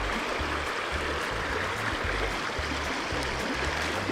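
Shallow river riffle rushing steadily over rocks, with background music's repeating bass notes underneath.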